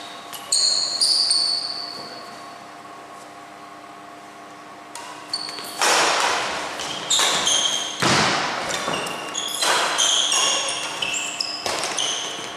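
Doubles badminton rally on an indoor court: sharp racket strikes on the shuttlecock and short high shoe squeaks on the floor. After a quieter lull it picks up into a fast exchange from about six seconds in.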